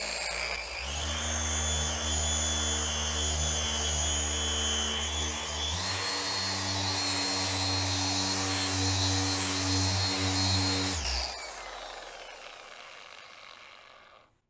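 Porter-Cable dual-action polisher with a cutting pad running on car paint, working in scratch-repair compound. It spins up and runs steadily, its tone shifts about six seconds in, and it is switched off about eleven seconds in, winding down with a falling whine.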